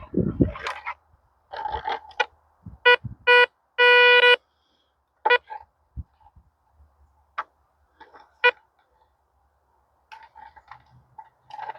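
Handheld metal detector giving a few short electronic beeps and one longer beep as it passes over metal left in an oak log. Faint scraping and handling noise sits between the beeps.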